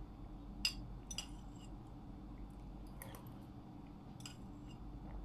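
Metal spoon clinking against a ceramic bowl, a few short sharp clinks with the loudest under a second in, with quiet eating sounds and a steady low hum.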